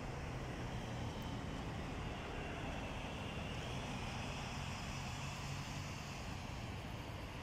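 Steady outdoor background noise: a low, even rumble of distant traffic with no distinct events.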